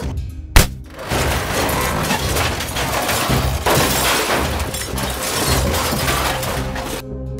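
A sharp bang about half a second in, then several seconds of crashing, breaking noise as a plastic triceratops toy is pushed through a plastic toy fence and knocks it down. Background music plays underneath.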